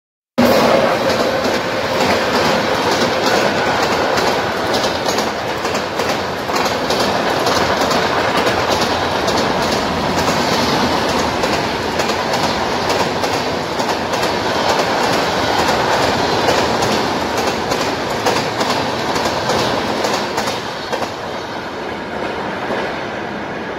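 Train of LHB passenger coaches of the 15274 Satyagrah Express rolling along the platform, its wheels clattering over the rail joints with many rapid clicks. The noise eases near the end as the last coach goes by.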